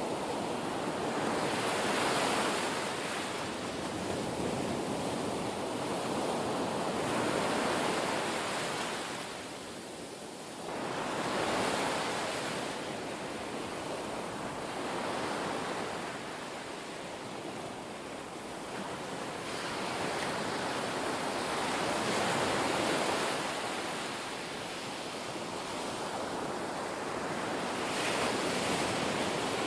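Ocean waves washing in, a steady surf hiss that swells and falls back every four to six seconds.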